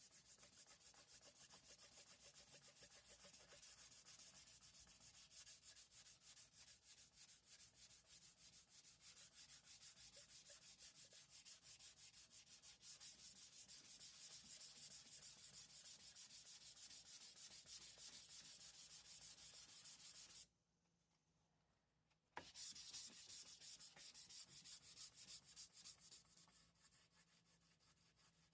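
Sandpaper rubbing on a boat's oxidized fiberglass gel coat in quick, even back-and-forth strokes. It stops for about two seconds two-thirds of the way through, starts again, then tails off.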